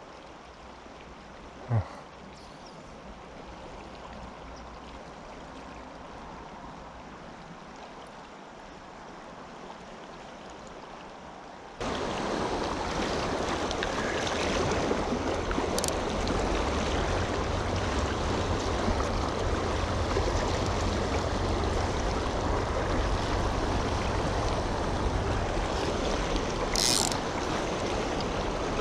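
Running river water over a shallow riffle, a steady rush, at first fairly quiet, then suddenly much louder and closer from about twelve seconds in. A single short click sounds about two seconds in.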